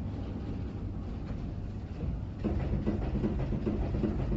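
PCB assembly-line machinery running: a steady low mechanical rumble with light clatter. It grows louder and busier about two and a half seconds in.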